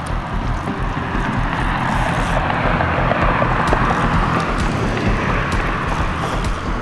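Wind buffeting the microphone: a steady rushing noise with an uneven low rumble, swelling a little mid-way.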